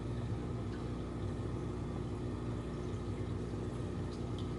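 Steady low hum of running reef-aquarium equipment, holding several steady tones, with a faint even hiss over it.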